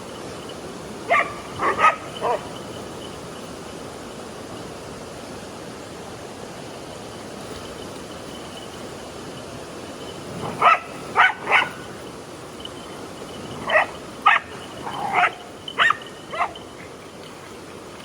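A dog barking in three short bouts: about four barks in the first seconds, three more past the middle and about five near the end. A steady rush of river water runs underneath.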